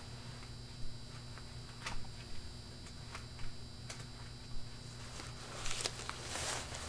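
Paper banknotes being counted out of a wallet: a crisp snap as each note is pulled, about once a second, then rustling of the notes near the end.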